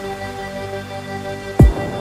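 Intro music with held, sustained chords, broken about a second and a half in by a single deep bass impact that drops in pitch.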